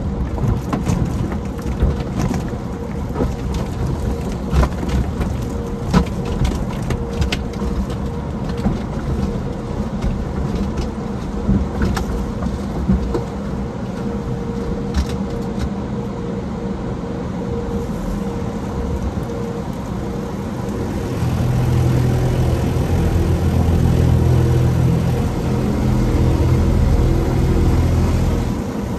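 Automatic tunnel car wash heard from inside the car: cloth wash strips slapping and rubbing across the windshield with scattered sharp knocks, then water spray and foam pouring over the glass, over a steady hum. About two-thirds of the way through, a louder low rumble sets in.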